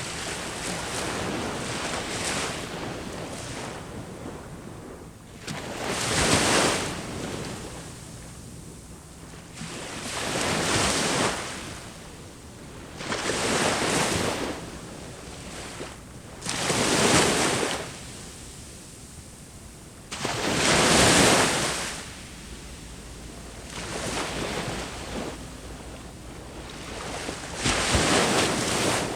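Ocean waves breaking on a beach: a steady wash of surf, with a louder wave crashing about every three to four seconds, seven in all.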